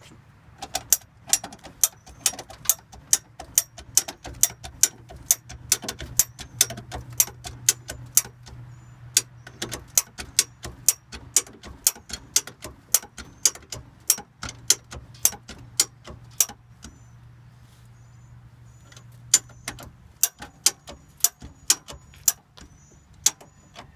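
Ratcheting bumper jack being pumped by its handle, lifting the car by the bumper: a sharp metal click about twice a second, with a pause of a few seconds near the end before the clicks resume.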